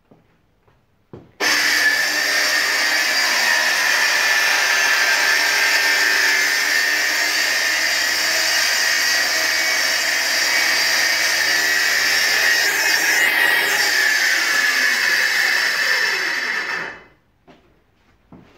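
Hand-held circular saw starts abruptly about a second and a half in and runs steadily, cutting a board, for about fifteen seconds. Near the end it winds down in pitch and stops.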